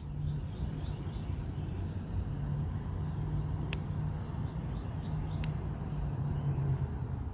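A steady low mechanical hum, with two sharp clicks about three and a half and five and a half seconds in.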